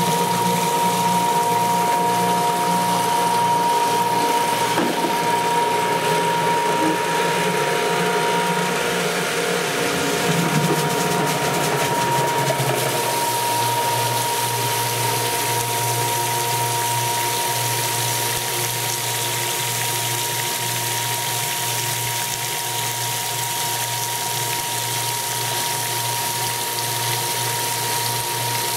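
Geothermal flush cart pump running steadily, circulating water through the ground loop, with return water churning and frothing into the cart's tank through the strainer basket. The low hum drops in pitch about eleven or twelve seconds in.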